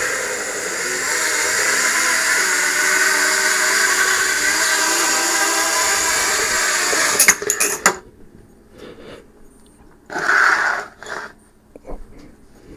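Electric motors and propellers of a 3D-printed drone whirring in flight, a steady whine of several tones drifting slightly in pitch. About seven seconds in there is a quick cluster of clattering knocks and the whine stops, leaving short scattered bursts of noise.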